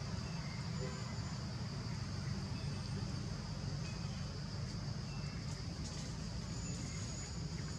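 Steady outdoor ambience: a constant low rumble with a steady high-pitched drone and a few faint short chirps above it.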